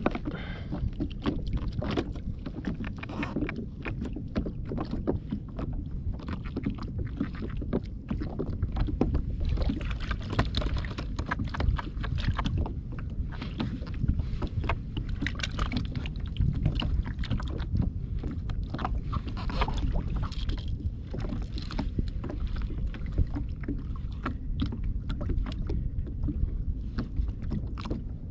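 Wind rumbling on the microphone and water lapping against a plastic kayak hull, with many small clicks and taps.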